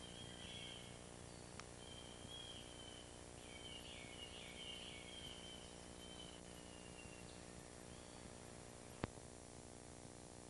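Faint birdsong, a series of warbled chirps and trills, over a steady low hum and hiss. A single sharp click comes near the end.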